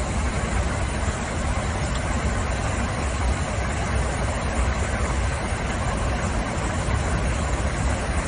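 Steady rumble and rush of an airliner in cruise flight, heard from inside the aircraft: engine and airflow noise with a deep low drone.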